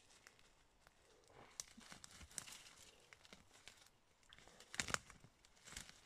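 A dachshund rummaging through dry leaves and grass stems: faint, scattered rustling and crackling of leaf litter, with a louder burst of crackles about five seconds in.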